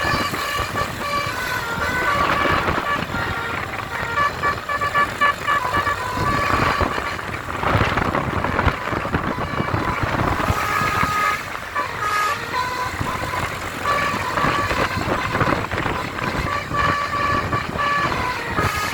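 Basuri bus horn playing a tune: runs of short, steady horn notes jumping between pitches, over steady background noise.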